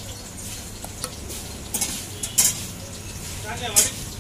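A steel spoon clinks sharply a few times against steel containers as curd is ladled over a kachori, over a steady low background noise.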